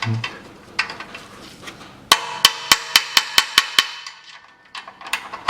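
Ratchet wrench clicking as it turns an extractor socket on a rusted, rounded exhaust heat-shield bolt. About two seconds in comes a quick run of about eight sharp metallic clicks with a faint ring, after a few quieter scrapes. The seized bolt has broken loose and is being backed out.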